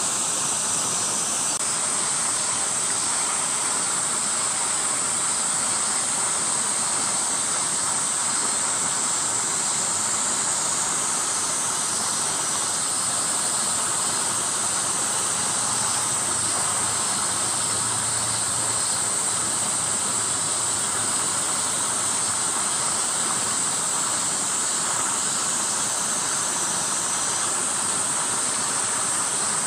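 Dense chorus of summer cicadas: a steady, high-pitched buzzing hiss that never lets up.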